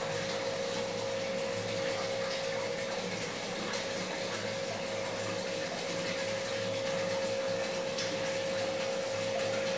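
Aquarium pump running steadily: a constant hum under an even hiss of moving, trickling water.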